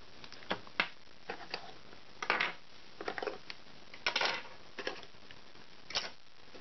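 Hands handling plastic action-camera mounts and bagged accessories on a tabletop: a string of short clicks, taps and rustles, irregularly spaced, the loudest about two and four seconds in.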